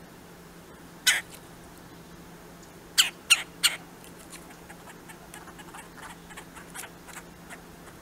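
Red-bellied woodpecker calls: one short harsh call, then three more in quick succession, followed by a run of fainter short sounds.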